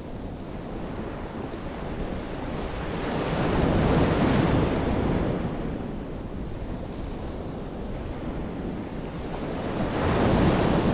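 Ocean surf breaking on a sandy beach, with two waves swelling loud and washing in, about four seconds in and again near the end. Wind buffets the microphone throughout.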